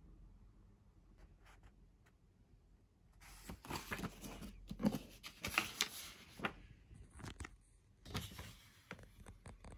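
Two spells of rustling with sharp light clicks, the first starting about three seconds in and the second near the end: handling noise.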